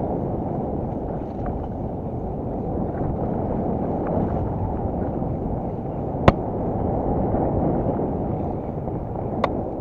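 Mountain bike rolling fast down a dirt forest trail: a steady rumble of tyres and riding noise, with one sharp click about six seconds in and a fainter one near the end.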